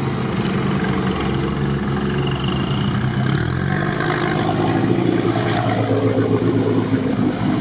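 Off-road vehicle's engine running steadily under load while wading through a muddy ford, heard from inside the cab; its note changes about three seconds in.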